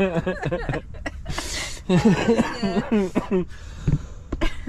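A person laughing in two bouts of quick, repeated chuckles, the second starting about two seconds in, with a breathy intake between them.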